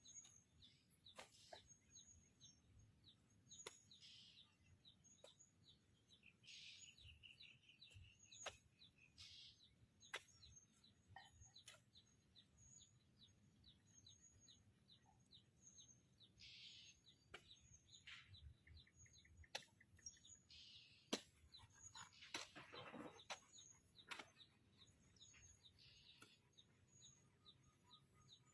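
Faint birds chirping: long runs of quick, short, high chirps, about four a second, with a few longer calls between them. A few sharp clicks are mixed in.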